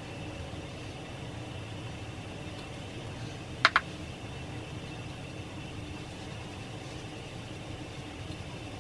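Ceiling fan running with a steady low hum and a faint high whine, broken by two quick sharp clicks close together about three and a half seconds in.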